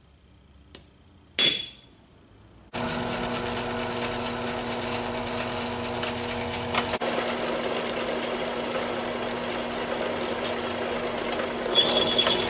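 A single hard hammer blow on a centre punch against a steel square tube, with a short metallic ring. Then a drill press runs, its small twist bit cutting into the steel tube: a steady motor hum under a scraping cutting sound that grows louder and harsher near the end.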